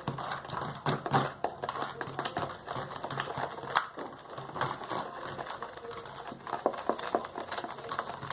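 Irregular small clicks, taps and crinkles of hands handling plastic containers and slime ingredients, with glue being added.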